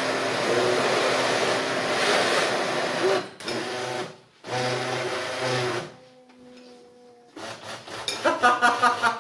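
Small personal blender motor running with a thick glue and shaving-foam mixture for about three seconds, cutting out, then running again in a shorter burst. Near the end, louder voices take over.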